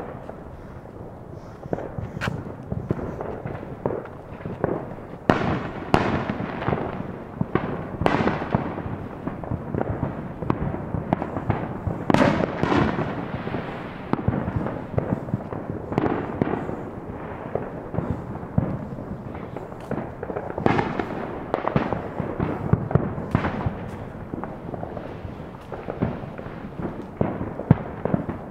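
Neighborhood consumer fireworks and firecrackers going off all around: a near-constant crackle and popping with louder bangs every second or two, some leaving a rolling echo. The biggest bangs come about 5, 8 and 12 seconds in.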